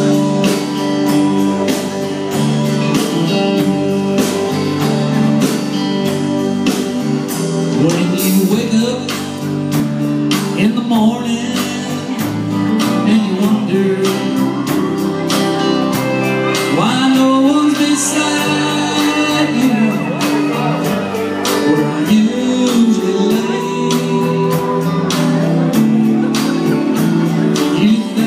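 Live band playing through a PA: electric guitars, keyboard and a drum kit keeping a steady beat.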